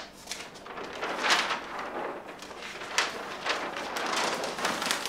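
Large flipchart paper sheets being lifted and flipped over the top of the pad, with a run of rustling swishes and crackles of paper.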